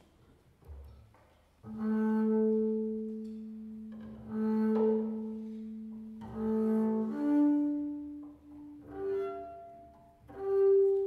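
Double bass played with the bow in long, separate notes. Each note swells and fades, and the pitch steps higher after the first few notes. The playing starts about two seconds in.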